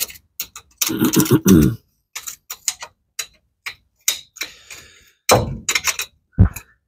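Irregular clicks, scrapes and knocks of hand work at an old car engine's open thermostat housing, with a longer scraping rub about a second in and sharper knocks near the end.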